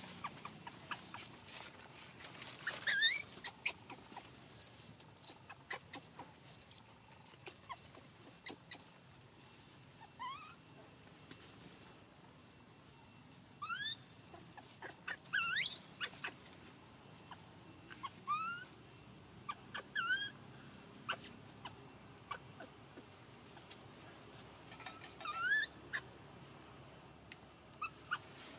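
A baby monkey crying: short whimpering calls, each rising quickly in pitch, given singly or in pairs with pauses of a few seconds between them, over faint scattered clicks.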